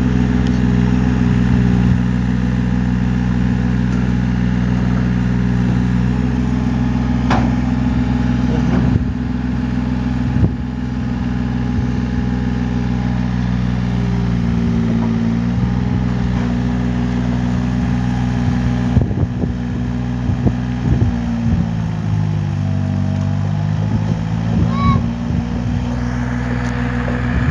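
Yanmar B25V mini excavator's diesel engine running steadily, its pitch dipping under load twice, with scattered sharp knocks.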